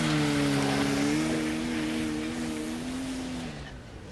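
A motor vehicle engine running, its pitch rising as it comes in, holding steady, then dropping and fading away near the end as the vehicle slows.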